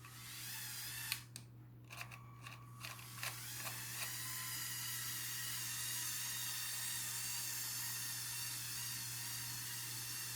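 Small electric motor and plastic gears of a motorized LEGO model truck: a few sharp clicks over the first few seconds, then a steady motor whine with gear noise from about four seconds in.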